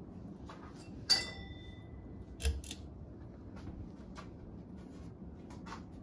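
Hunter Infiniti ceiling fan running with a low steady hum, with scattered light clicks. About a second in a sharp metallic clink rings briefly, and a second knock comes about a second and a half later.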